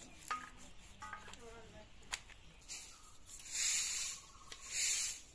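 Knife scraping and tearing the skin off a whole chicken: long scraping strokes about a second apart in the second half, after a few light clicks.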